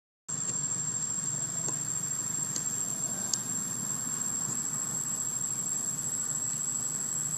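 Steady outdoor ambience: an unbroken high-pitched insect drone over a low, even hum, with a couple of faint ticks.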